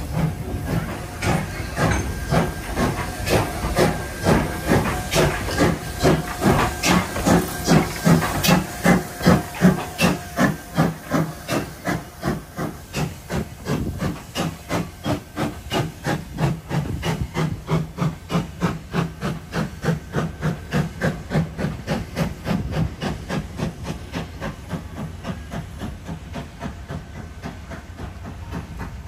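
Ex-Queensland Railways AC16-class steam locomotive pulling away with its train: sharp exhaust chuffs that quicken steadily as it gets the train moving, with steam hissing around the cylinders.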